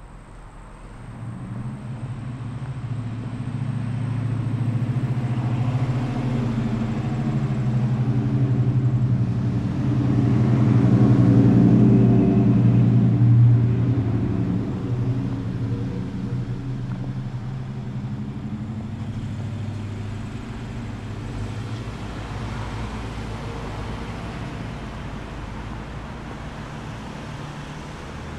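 A motor vehicle's engine passing by: it grows louder over the first dozen seconds, is loudest about twelve to fourteen seconds in, then slowly fades away.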